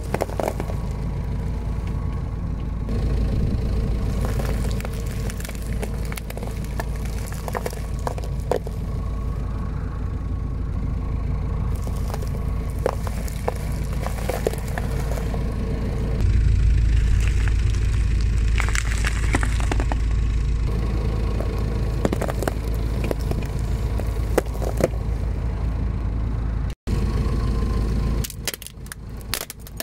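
A car engine running with a steady low rumble while an off-road tyre slowly rolls over plastic- and foil-wrapped objects on coarse gravelly asphalt, with scattered crackling and cracking as the wrapping and its contents are crushed. The sound drops out briefly near the end, then turns choppier, with more crackling, as the tyre rolls onto a plastic tray of Orbeez water beads.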